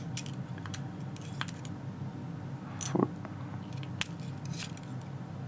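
Light metallic clicks and clinks as the small brass pins of a Trioving 6-pin padlock core are handled and set down one by one, with a sharper click about four seconds in.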